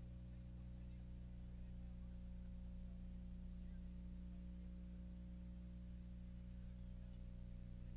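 Steady low electrical hum with a few higher overtones, over faint hiss.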